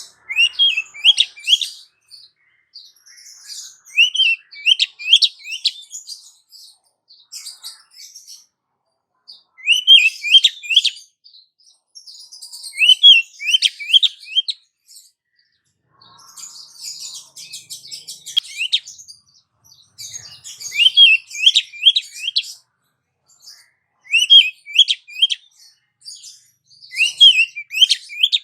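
Female oriental magpie-robin (kacer) calling to a male: short phrases of three or four quick rising notes, repeated every few seconds, with scratchy, twittering chatter in between.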